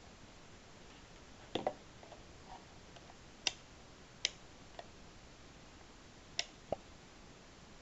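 Sharp clicks of a digital multimeter's rotary selector dial being turned through its detents, a handful of single or paired clicks spaced about a second apart.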